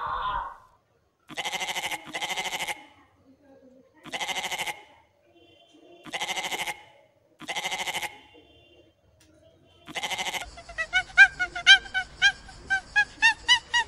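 A goat bleating six times, each bleat short and quavering, with gaps of about a second or two between them. Near the end a quick run of short, high, yelping calls takes over.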